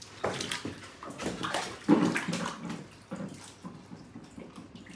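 Water splashing and sloshing in a shallow inflatable paddling pool as a Rottweiler steps and paws about in it: a run of irregular splashes, loudest about two seconds in, dying away over the last second.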